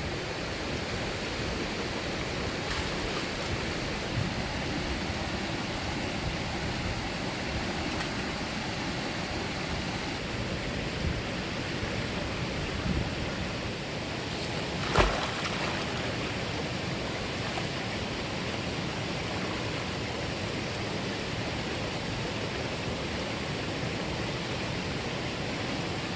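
Mountain valley stream rushing steadily over rocks. One sharp knock about halfway through.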